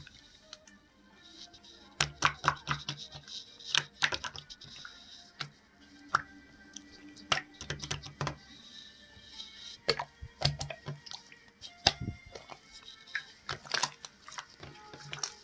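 Irregular clusters of sharp clicks and taps, many with a dull low knock under them, starting about two seconds in and coming in bursts.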